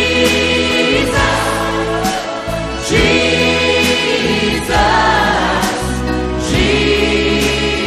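Gospel worship music: an instrumental passage of sustained chords over a steady bass, with choir-like voices.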